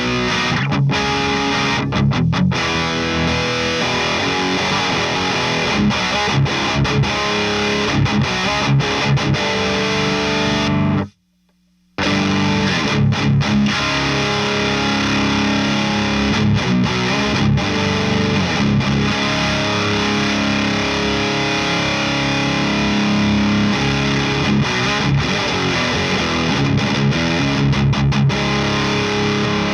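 Distorted electric guitar riffs and chords played through a Friedman Runt 50 tube amp with the amp's built-in boost off, boosted by a J. Rockett Rockaway Archer Klon-style pedal. The playing stops dead for about a second, about eleven seconds in, then resumes.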